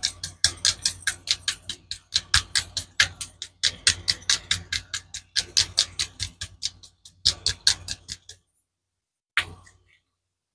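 Small bottle of metallic alcohol ink being shaken hard, its mixing ball rattling in quick sharp clicks, about five a second, in several bursts; it stops and one last click follows about a second later.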